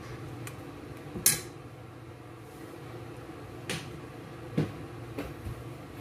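A metal spoon clinking against a metal pot as vinegar is spooned into a marinade: several short, sharp taps scattered through the few seconds, the loudest about a second in.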